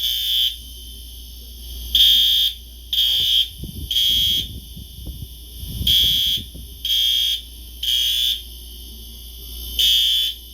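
Whole-house fire alarm sounding in the temporal-three evacuation pattern: a high-pitched beep, three half-second beeps then a pause of about a second and a half, over and over. Set off by smoke from bacon fried extra crispy.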